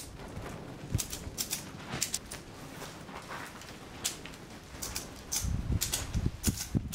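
Ratchet strap being tightened by hand: irregular sharp clicks of the ratchet mechanism, often two or three close together, with a few dull knocks against the wood near the end.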